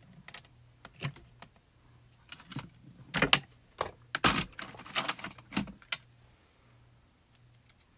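Hands handling paper and card stock on a cutting mat: short rustles and a run of sharp clicks and taps, the loudest between about three and five seconds in.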